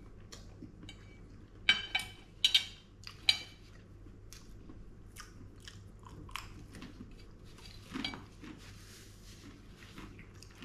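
Metal fork and knife clinking against a ceramic plate, with five sharp clinks close together about two seconds in, and the soft sounds of chewing food in between.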